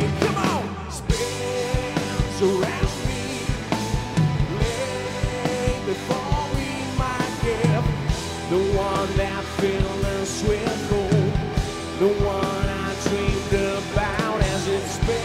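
Live rock band playing: drums keeping a steady beat under electric guitar and bass guitar, with a male lead singer.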